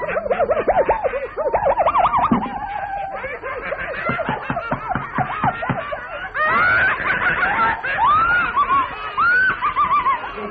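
Vintage cartoon soundtrack of high-pitched squealing and laughing voices, full of quick rising-and-falling pitch swoops, with a patch of rapid short strokes in the middle.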